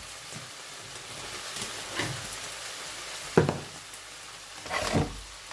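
Chopped tomatoes and onions sizzling steadily as they sauté in a frying pan, with a few short knocks of things being set down on the counter, the sharpest about three and a half seconds in.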